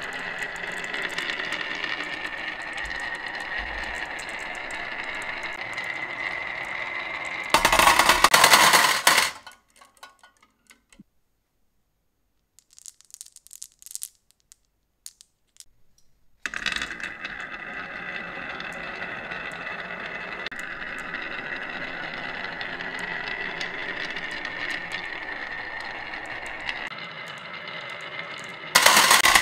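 Glass marbles rolling down a wavy grooved wooden track, a steady rolling rattle with a faint ringing tone. About seven seconds in they spill off the end into a metal tin toy truck in a loud, brief clatter. After a quiet pause with a few clicks of marbles in a hand, a new batch rolls down and crashes into the tin near the end.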